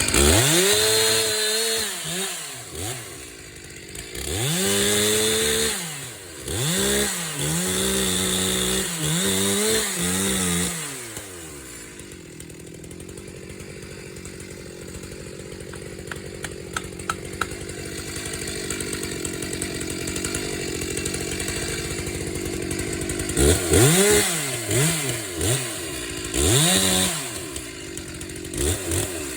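Chainsaw revving up in repeated bursts and dropping back each time, then idling steadily for about ten seconds in the middle with a few faint ticks, before revving in bursts again near the end.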